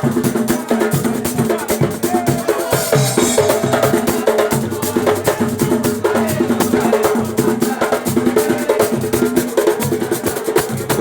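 Music: a batuque-style percussion beat, dense fast clicks like a wood block and drum hits over a low repeating tone.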